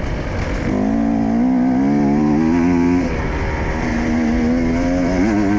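Husqvarna enduro motorcycle engine under way, revving up through a gear about a second in, dropping off briefly near the middle as the rider shifts or rolls off, then pulling steady and rising and falling unevenly near the end over rough ground, with wind and track noise underneath.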